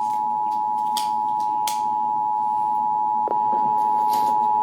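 EAS attention signal: the steady two-tone alert tone (853 and 960 Hz sounded together) that announces an emergency alert before the voice message, with a few faint clicks over it.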